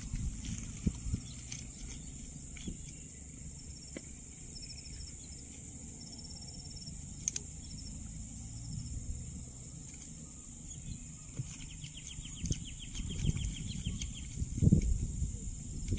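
Steady high-pitched insect buzzing over a low rumble, with short rapid chirping trills, the clearest one starting about eleven and a half seconds in; a few louder low thumps come near the end.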